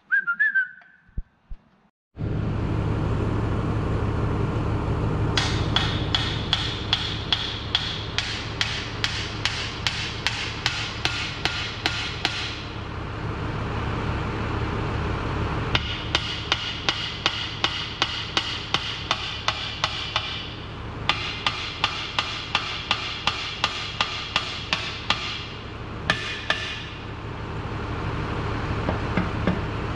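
Rapid, evenly spaced metallic strikes, about four a second, in runs of several seconds with short breaks, over a loud steady machine noise with a low hum that starts abruptly about two seconds in.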